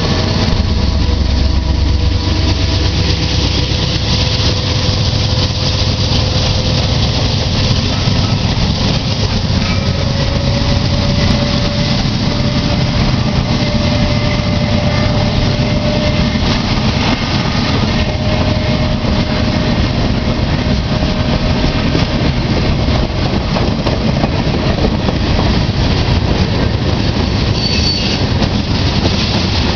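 Norfolk Southern freight train rolling past close by, a loud steady rumble of boxcars and tank cars on the rails with a thin wheel squeal. A locomotive's heavy engine drone fades out over the first few seconds.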